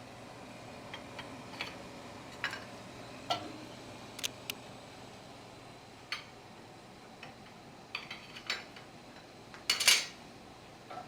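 Scattered light clinks and knocks of kitchen utensils against pans and dishes, with a louder clatter near the end.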